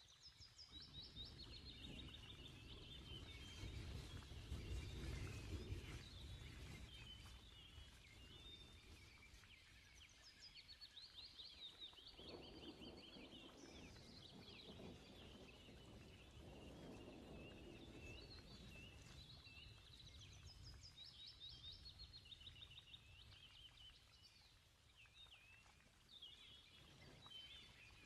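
Faint birdsong: many short chirps and quick trills from small birds, with low rustling at times.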